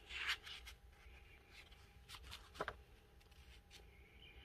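Paper pages of a coil-bound Erin Condren Life Planner being turned, faintly: a soft rustle at the start, a light tap about two and a half seconds in, and another rustle near the end.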